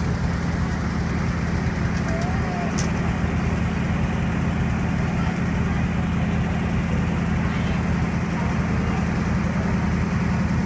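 Aerial ladder fire truck's engine running steadily, a constant low drone.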